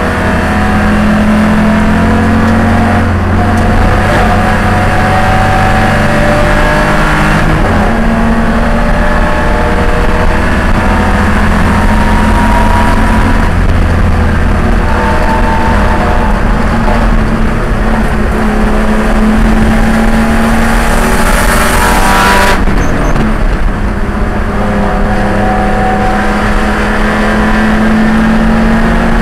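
Spec E30 BMW race car's engine running hard at racing speed, heard from inside the cockpit, its pitch climbing and dropping with gear changes and throttle lifts; the note cuts abruptly about 22 seconds in.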